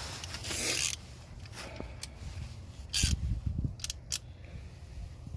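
Metal scraping and a few sharp clinks as a strut spreader tool is worked into the steering knuckle's pinch clamp on a front strut, with a louder scrape and low thudding about three seconds in.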